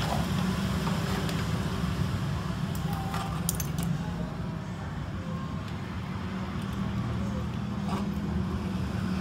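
A few light metallic clicks and rattles from small hand tools while a replacement resistor is fitted into a CRT television's circuit board, over a steady low background rumble. The clicks come in a small cluster about three seconds in and once more near the end.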